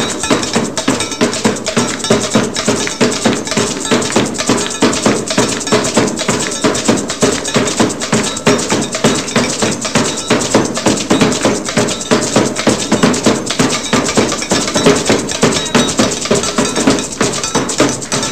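Live percussion music: hand drums and a bead-netted gourd shaker (shekere) playing a fast, steady rhythm of close-set strikes.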